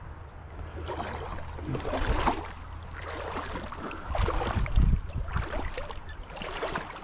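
Rubber boots wading through a shallow creek: water swishing and splashing in a handful of uneven steps, with some low rumble on the microphone.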